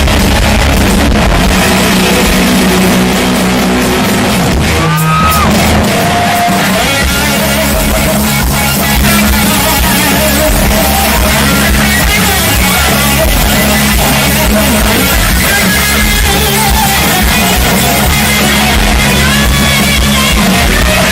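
Loud live rock music: a band with guitar, with a voice singing over it.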